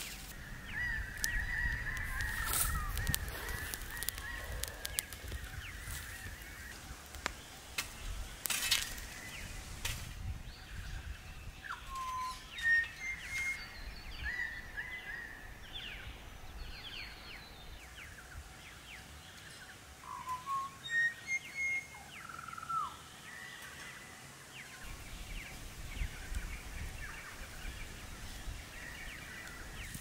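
Wild birds calling: many short calls and chirps, scattered through the whole stretch, with a couple of sharp snaps of dry sticks being broken in the first ten seconds.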